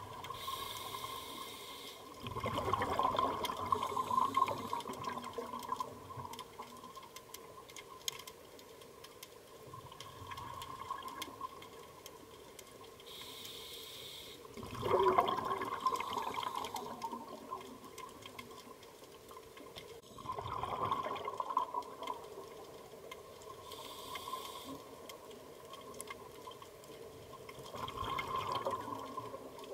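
Underwater sound of a scuba diver's regulator breathing. A short hiss of breathing in comes now and then, and a gurgling rush of exhaled bubbles comes every several seconds, over a faint steady tone.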